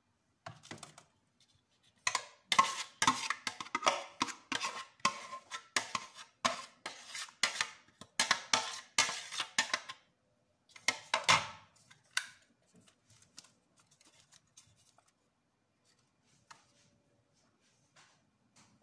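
A metal spoon scraping and knocking inside a plastic blender jar, about two or three strokes a second, as blended tomato pulp is emptied out. The strokes stop about ten seconds in, with a few more a second or so later, then only faint ticks.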